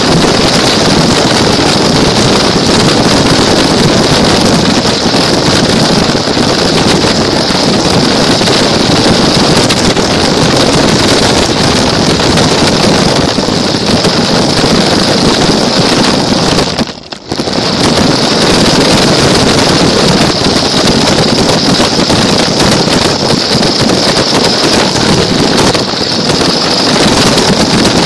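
Loud, steady rattle and whine of a small toy car's motor and wheels driving along, heard from a camera mounted on the car itself. The noise drops out briefly about 17 seconds in.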